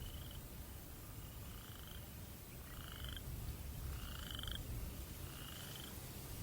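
Frogs calling at night: short, pulsed trilling calls, each about half a second long, repeating roughly once a second. A steady low rumble of breeze runs beneath them.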